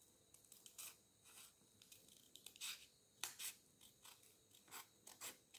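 Scissors snipping through folded paper: several short, faint cuts at uneven intervals.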